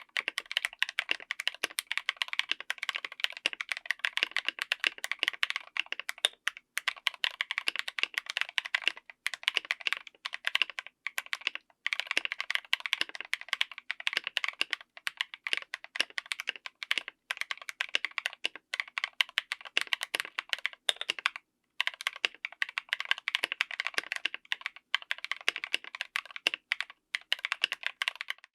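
Fast typing on a full-size mechanical keyboard with stock Chosfox x JWK DD linear switches on an FR4 plate: a dense stream of keystrokes, broken by a few brief pauses.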